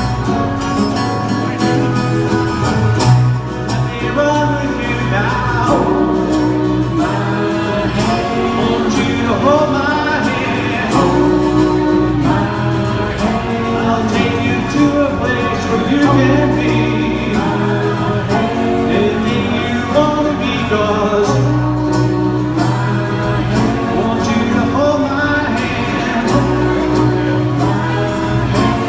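Live acoustic guitar and electric keyboard playing a pop-rock song, with sung vocals over them for most of it.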